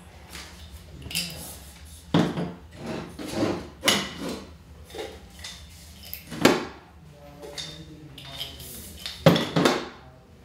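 Carbon-fibre octocopter booms clattering and knocking as they are lifted out of a hard case and set down on a plastic folding table. There are several sharp knocks, the loudest about six and a half and nine and a half seconds in.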